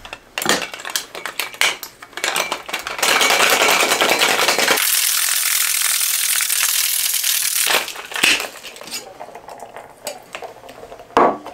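Ice clinking in a tin-on-tin metal cocktail shaker, then a steady ice rattle for about five seconds as the shaker is shaken hard to chill the drink. It ends in a few knocks and clinks as the two tins are tapped and pulled apart.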